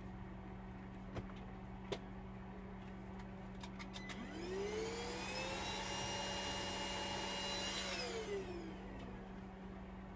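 A few light clicks, then a small electric motor spins up about four seconds in, runs at a steady pitch for about four seconds and winds down.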